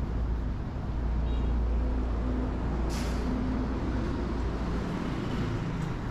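A heavy vehicle's engine rumbling close by in street traffic, with a short, sharp air-brake hiss about three seconds in. The low rumble drops away about five seconds in.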